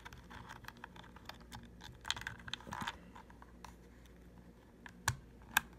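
Light plastic handling noises from a Slime Elite heavy-duty tire inflator as a part is stowed back in its storage compartment: scattered small clicks and rattles, a denser patch about two seconds in, and two sharp clicks near the end.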